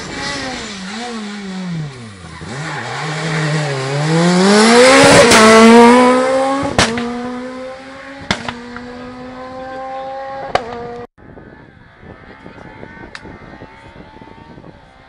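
Rally car slowing with quick downshifts, then accelerating past, its engine pitch climbing to the loudest point and holding as it pulls away, with several sharp cracks. The sound cuts off abruptly about eleven seconds in, leaving a fainter engine in the distance.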